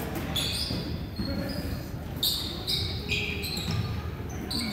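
Basketball game on a hardwood gym court: a basketball bouncing and sneakers giving several short, high squeaks on the floor, over the hall's crowd murmur.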